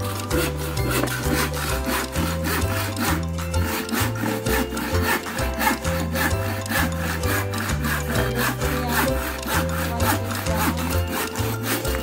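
Handsaw cutting through a wooden board in steady back-and-forth strokes, with background music and its bass line underneath.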